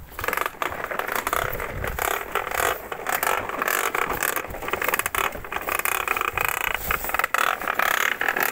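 A large plastic toy dump truck pushed by hand, its plastic wheels and body rolling and rattling over gravel and grass with a continuous scraping clatter.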